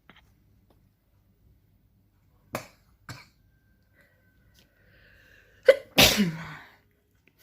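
A woman sneezing once, hard, a sneeze set off by a nasal swab, with a voiced tail falling in pitch. Two brief breath sounds come a few seconds before it.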